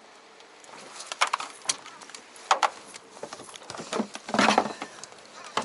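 Handling noise in a small boat: a few sharp knocks and taps, then a longer clatter about four seconds in as a hard plastic lid is lifted and moved.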